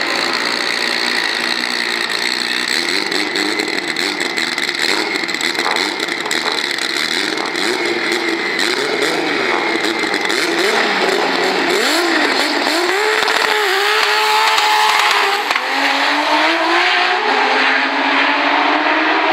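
Two race cars at a drag strip start line, the 1000 PS turbocharged VR6-engined Audi S3 and a Porsche 911, engines held at high revs with the pitch bouncing, then launching about two-thirds in and accelerating hard away with engine pitch climbing.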